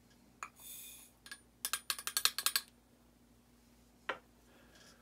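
Small clicks and clinks of powder-reloading gear as a rifle powder charge is tipped back into the scale pan to check for spilled powder: a click, a short hiss, then a quick run of about ten clinks around the middle, and a single click near the end.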